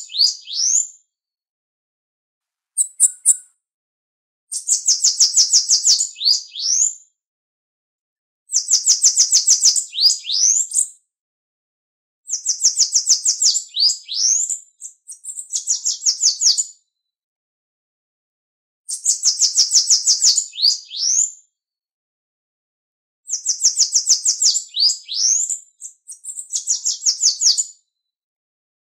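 Bananaquit singing: repeated high, fast, buzzy trilled songs of two to three seconds, each ending in a few upward-slurred notes, with silent gaps of a second or two between songs.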